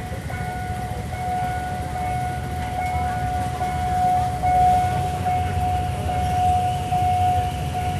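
Passenger train running on the line, with a steady low rumble and a single held whine above it that wavers slightly in pitch.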